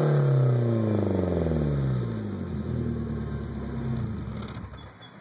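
BMW E36 exhaust as the engine's revs fall back from a blip and settle to a steady idle. The engine sound drops away about four seconds in.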